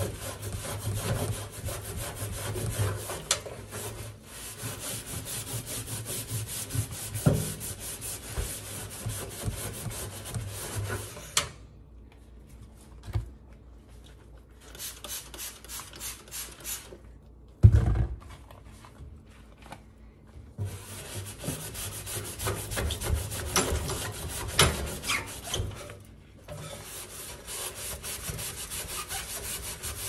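Rubber-gloved hand scrubbing the inside walls of a stainless-steel toaster oven: quick rasping strokes that pause twice for a few seconds near the middle, with one sharp knock in the second pause.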